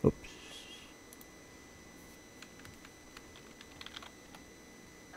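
Quiet computer keyboard typing: a scatter of short keystrokes, bunched together about four seconds in. A single sharp thump, the loudest sound, comes right at the start.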